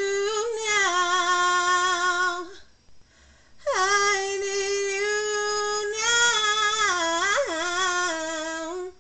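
A solo voice singing a gospel song without accompaniment, holding two long notes with a slight vibrato. The first lasts about two and a half seconds. After a short breath comes a longer one of about five seconds, which dips and swoops back up near the end.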